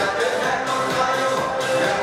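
Loud music playing throughout.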